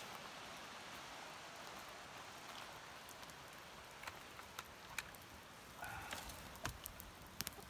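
Campfire crackling: a faint steady hiss with scattered sharp pops, more of them in the second half.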